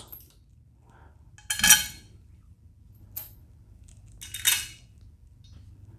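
Metal clinks as the motorcycle's stock bolts are handled and set into the luggage rack's holes: two clear clinks about a second and a half in and near the end, with a fainter one between.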